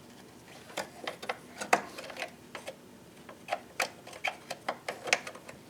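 Light, irregular plastic clicks and taps, a few a second, from DDR3 memory modules being handled and fitted into the motherboard's memory slots.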